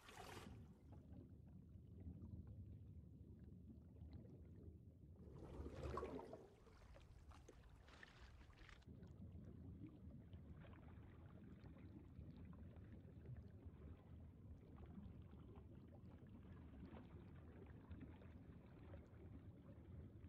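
Faint sea water: a low, steady, muffled rumble of water, with a louder splash about six seconds in and a smaller one around eight seconds, after which the sound turns dull and muffled as if heard underwater.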